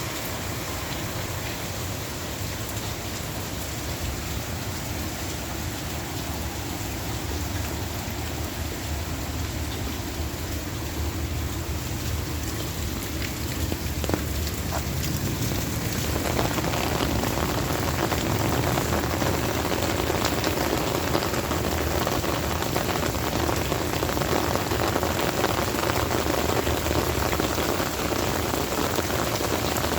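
Heavy rain falling, a steady hiss with the fine patter of drops, growing heavier and louder about halfway through.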